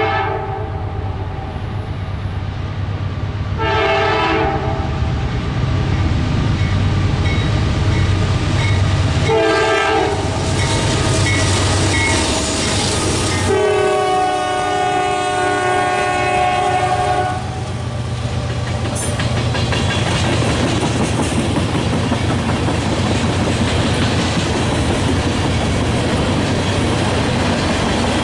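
A train's multi-note horn sounds a short blast about four seconds in, another about nine seconds in, then a long blast held for about four seconds, over the steady rumble of the locomotive. After the horn stops, the cars roll past with rhythmic wheel clatter.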